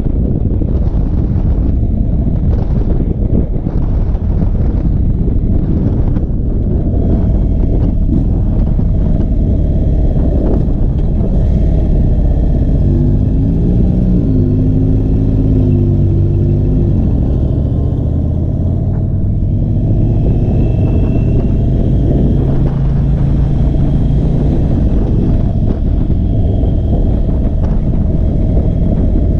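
Indian Chief Bobber V-twin cruiser motorcycle being ridden on the road, heavy wind rushing over the rider's camera microphone. The engine note rises and wavers about halfway through, then holds steady for several seconds.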